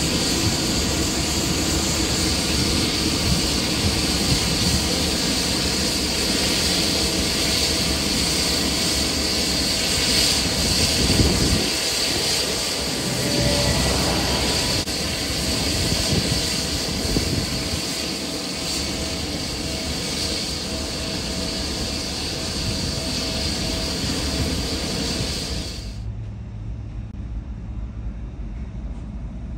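Jet engines of a Boeing 747-8 (GEnx-2B turbofans) running: a loud, steady rush with a thin high whine over it. Near the end it cuts abruptly to the quieter, lower hum of a Boeing 777 taxiing.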